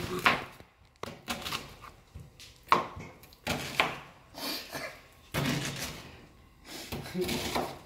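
Chef's knife chopping onion on a plastic cutting board: sharp knocks of the blade hitting the board in short, irregular runs, the loudest near the start and a little before the middle.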